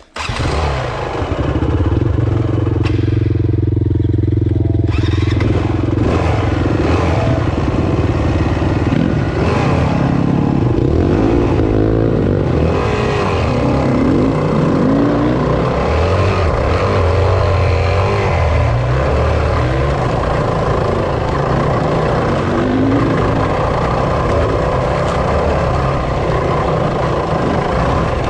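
Enduro dirt-bike engine heard close up from the rider's own bike. It comes in loud right at the start, holds a steady note for a few seconds, then revs up and down continually as the bike climbs a rocky trail.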